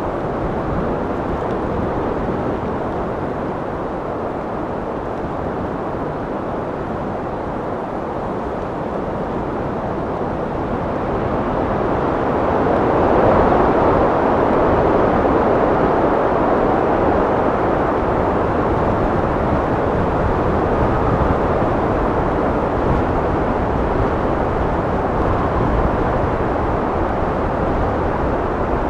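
Wind blowing in a steady rush that swells louder a little under halfway through and holds there.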